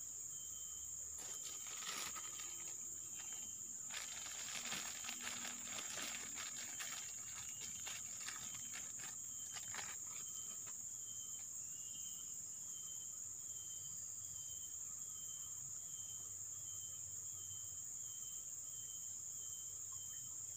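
Insects droning in a steady high-pitched chorus, with another insect chirping in an even pulse during the second half. Close rustling and crackling sounds through roughly the first half.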